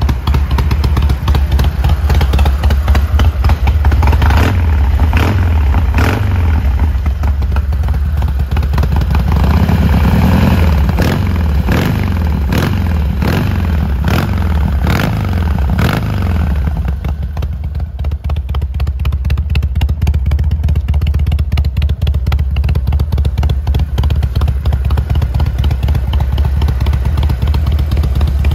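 Harley-Davidson XL1200C Sportster's 1200 cc V-twin running through aftermarket mufflers, given a series of short throttle blips that rise and fall in pitch, then settling into a steady idle about two thirds of the way through.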